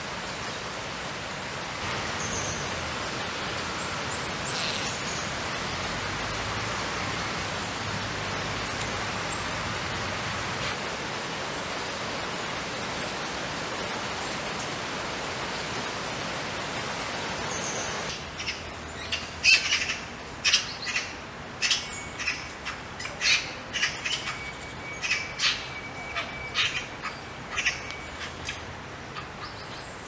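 A steady hiss with a few faint high bird chirps, then, from a little past halfway, a Eurasian magpie giving a run of loud, sharp, clipped calls at an uneven pace, two or three a second.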